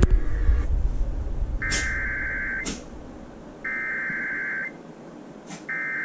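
Emergency Alert System SAME header over NOAA Weather Radio: three bursts of warbling digital data tone, each about a second long with about a second between them, over faint radio hiss with a few crackles. Louder rumble fades out in the first half-second.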